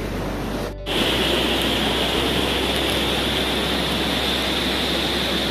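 Steady rushing of a waterfall and mountain stream, an even hiss that breaks off briefly about a second in and then goes on unchanged.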